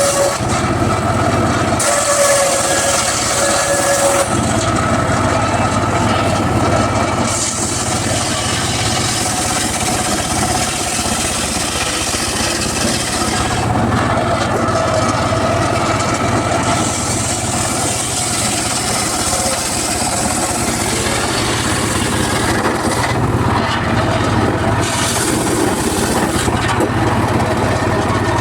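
Home-built circular saw running and cutting teak wood: a loud, continuous whine and rasp whose pitch shifts several times.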